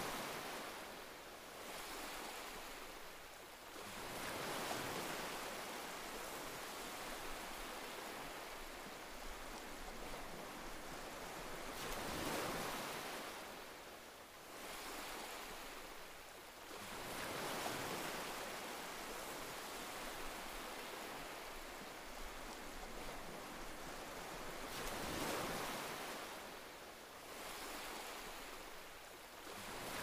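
Ocean surf: waves breaking and washing in, the noise swelling and fading every several seconds.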